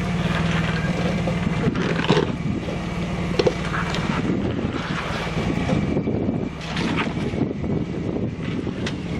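Supercharged Jeep's engine running under load while rock crawling. A steady hum for the first couple of seconds turns into a rougher, uneven sound with a few sharp knocks.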